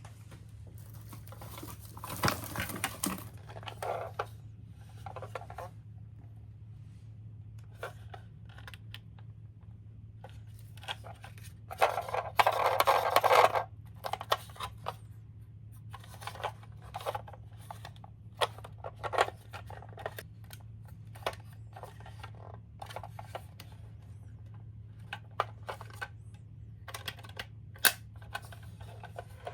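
Small die-cast toy cars clicking and knocking as they are handled and set on a play course, with a louder stretch of rolling noise lasting about a second and a half near the middle, over a steady low hum.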